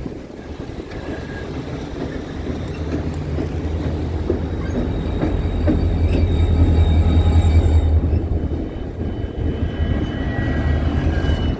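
A lash-up of EMD diesel-electric freight locomotives passing underneath. The engines' steady low drone grows louder and is loudest around the middle as the units go below, with faint high wheel-squeal tones over it.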